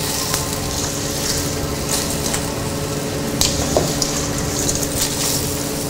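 Limpets in their shells hitting a hot frying pan of sautéed onion and garlic: steady sizzling and crackling, with a few sharp clicks of shells against the pan a little past the middle.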